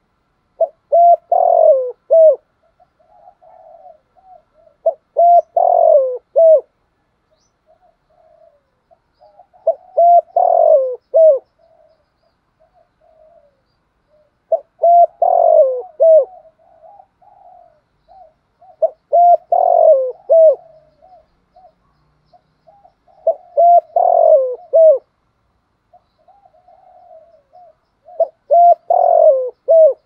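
Spotted dove cooing, its phrase of several notes with a louder middle note repeated seven times, about every four to five seconds, with softer short coos between the phrases. This is the cu gáy's advertising coo that decoy birds are kept for.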